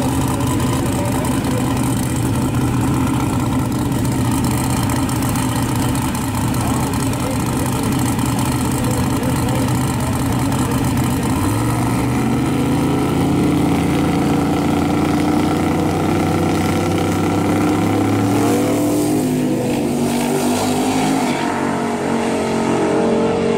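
Drag-racing Fox-body Mustang and the car in the next lane running loudly and steadily on the starting line, then launching about halfway through. The engine pitch climbs for several seconds, steps down with gear shifts, and fades as the cars pull away down the track.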